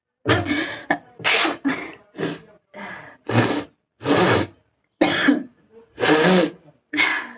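A person sneezing and coughing in a quick run of about ten short bursts, roughly one every half second: sneezes being forced out during a sneezing challenge, some coming out as coughs.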